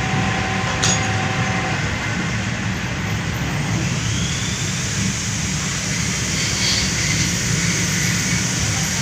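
Metal lathe running steadily while cutting an engine block head, a constant machine hum with hiss from the cut, one sharp click about a second in.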